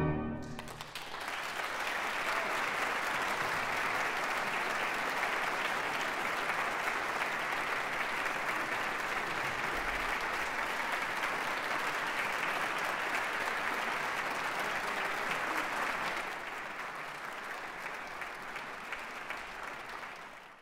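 The last orchestral chord dies away in the hall's echo, and about a second in a concert-hall audience breaks into steady applause. The clapping thins a little near the end and then fades out.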